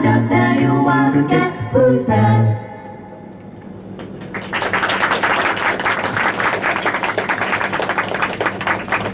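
Five-voice a cappella group singing the final chord of a song over a vocal bass line with sharp percussive clicks, cutting off about two and a half seconds in. After a short lull, the audience applauds steadily.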